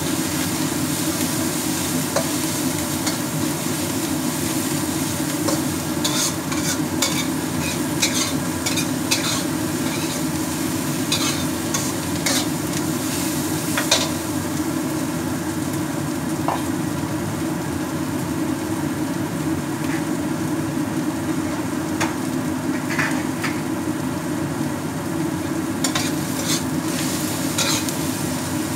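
Vegetables frying in oil in a wok while metal tongs stir, scrape and tap against the pan, with a steady low hum underneath. The sizzle is stronger in the first half and the clattering clicks come in clusters.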